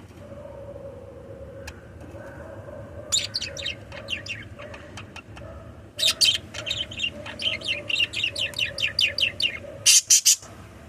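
Pet budgerigars chirping in quick runs: a short flurry, then a longer fast chatter, and a few loud sharp chirps near the end, over a faint steady hum.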